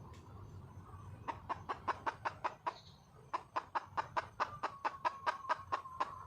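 Wild hen (female red junglefowl) giving rapid clucks in two runs of about five a second, the second run longer than the first: a hen calling for a male.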